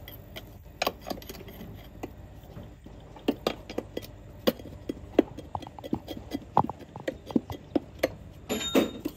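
Irregular metallic clinks and taps, several a second, each ringing briefly, with a denser scraping burst near the end. This is metal striking metal during brake drum production work.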